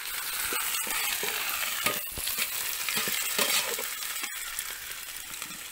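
Chopped shallots, onion and green chillies sizzling in hot oil in a metal pan. A metal spoon scrapes and knocks against the pan as they are stirred. The sizzle eases a little near the end.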